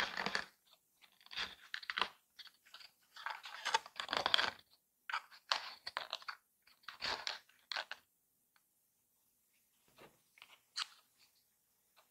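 Stiff paper and card parts of a paper toy being handled close up: crisp rustling and scraping in bursts for about the first eight seconds, then a few light taps as small paper discs are laid on a cutting mat.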